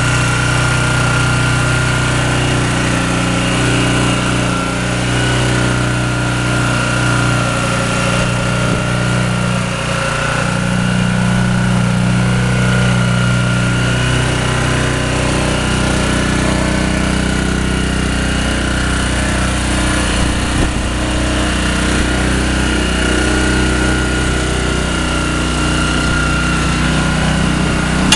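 Honda GX160 single-cylinder four-stroke engine on a pressure washer, running steadily.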